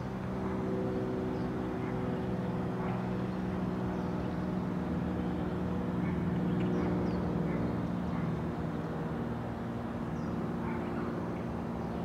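Steady low hum of an idling engine, with faint short high chirps now and then.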